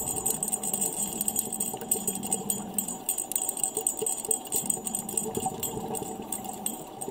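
Underwater reef ambience heard through an underwater camera: a dense, irregular crackle of tiny clicks over a steady hum.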